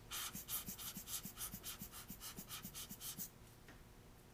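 Giottos rubber bulb air blower squeezed rapidly, about a dozen short puffs of air at three or four a second, blowing dust off an exposed camera image sensor. The puffing stops a little after three seconds in.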